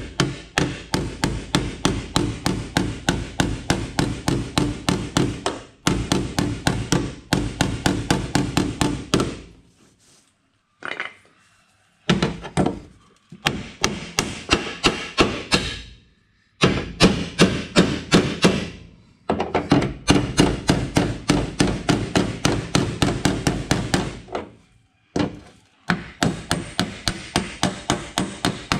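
Panel-beating hammer tapping against a steel dolly held behind the dented lower body-panel edge of a Toyota Land Cruiser, tapping the dent back out. Light, rapid metal-on-metal strikes come at about four a second in runs, with short pauses between them.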